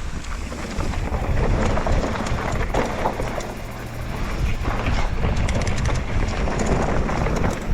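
Wind rushing over a moving camera's microphone with a low, uneven rumble and scattered rattles and clicks, getting louder about a second in.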